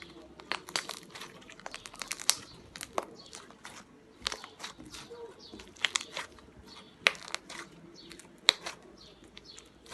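Slime being squeezed and pulled by hand, giving irregular sharp clicks and pops, with a few louder pops about two, seven and eight and a half seconds in.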